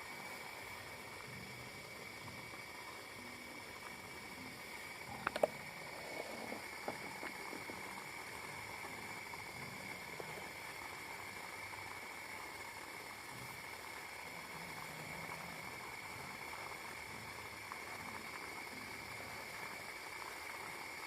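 Steady high-pitched drone of night insects at a campsite. A short cluster of sharp clicks comes about five seconds in, followed by a few fainter ticks.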